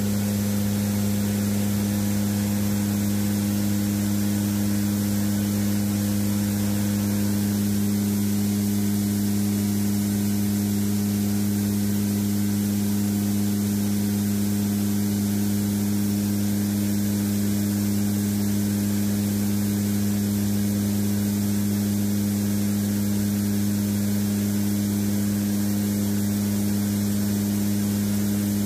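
Cabin drone inside a WC-130J Hercules in flight: its four turboprop engines and propellers give a steady low hum in two pitches over an even rushing hiss.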